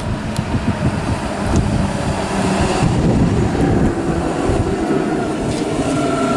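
DB Class 423 S-Bahn electric multiple unit, two coupled sets, pulling into the platform and rolling past with a rumble of wheels and running gear. A steady whine from its electric traction equipment sets in near the end as it slows for the stop.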